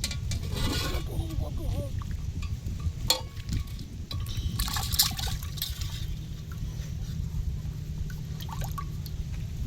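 Water splashing and trickling in short bursts, over a steady low rumble like wind on the microphone.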